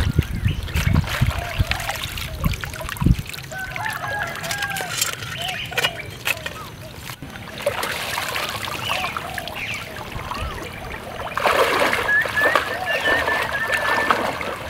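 Water splashing and sloshing as people wade through knee-deep water in a flooded rice paddy, with a few low thumps in the first three seconds. The splashing grows denser about two-thirds of the way in.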